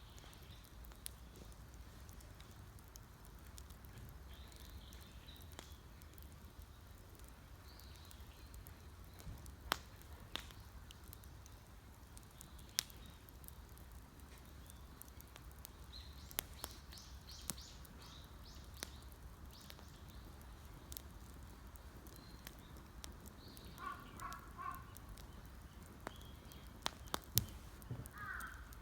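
Wood campfire crackling, with scattered sharp pops, several of them loud, over a low steady hum. Birds call now and then, including a short run of repeated calls a few seconds before the end.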